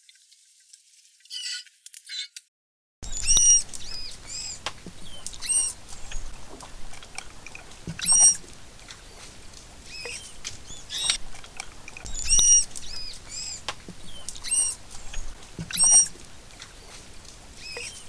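Faint, high dugong chirps for the first couple of seconds, then, after a second's gap, manatee vocalizations: short, high-pitched squeaks and chirps, about one every second or two, some arching up and down in pitch, over a low background hiss.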